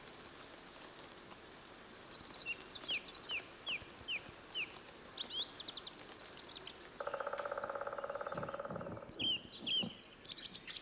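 Thrushes singing in light drizzle: short whistled phrases repeated over a soft steady hiss of rain. About seven seconds in comes a lower, harsh pulsing call, and right at the end a rapid high chatter begins, a blackbird's alarm as it flies off.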